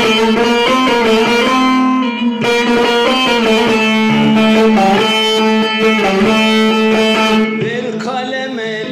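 Long-necked bağlama (saz) played solo: a quick plucked melody over a steady ringing drone note, without singing.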